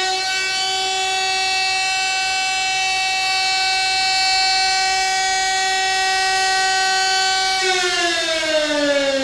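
A siren sounding one steady wailing tone, then winding down with a slowly falling pitch for the last second or so.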